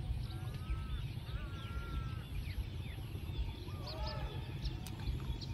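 Outdoor bird chorus: many short chirps and rising and falling calls, with a few longer whistled calls near the start and about four seconds in. A high pulsing tone repeats about every three-quarters of a second over a low, steady rumble.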